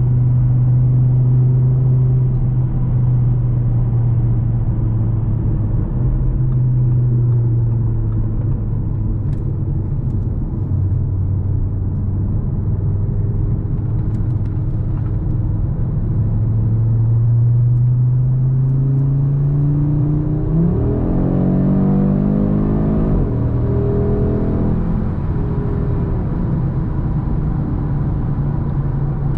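2024 Audi RS3's turbocharged 2.5-litre five-cylinder engine running at steady revs under way. About twenty seconds in it revs up, its note climbing for a few seconds, then it settles back to a steady drone.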